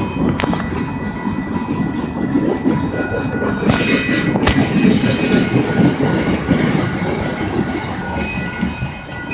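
Norfolk Southern freight train's covered hopper cars rolling past close by: a steady rumble of steel wheels on the rails with clickety-clack and a few sharp clicks. A faint high steady whine joins about three seconds in.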